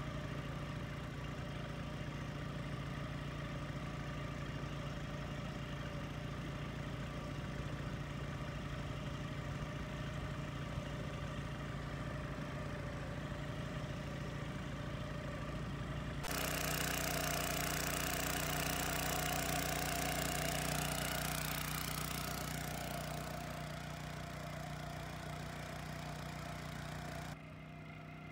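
Small boat's outboard motor running steadily with an even hum. About two-thirds of the way through, the sound turns suddenly louder with a rushing hiss added, then drops abruptly quieter near the end.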